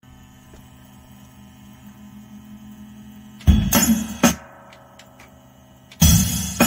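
Opening of a boom-bap hip-hop instrumental: a low steady hum, then two heavy hits about halfway through, and the drum beat coming in near the end.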